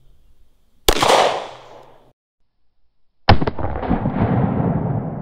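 A Glock 19 Gen 5 9mm pistol shot about a second in, its echo cut off short. About three seconds in comes a second sharp bang with a long rumbling tail.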